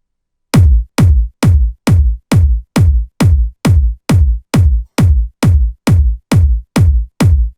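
Electronic house-music kick drum playing alone in a steady four-on-the-floor beat of about 135 beats a minute, starting about half a second in. Each hit drops sharply in pitch into a long, deep bass tail.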